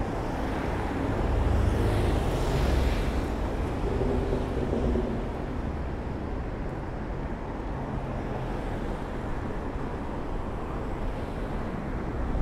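Road traffic on a city street: a steady rumble of passing vehicles, with one passing louder about two seconds in.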